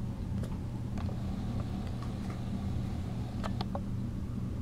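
A steady low hum, with a few light clicks and scuffles from kittens playing on carpet, including three quick ones a little past halfway.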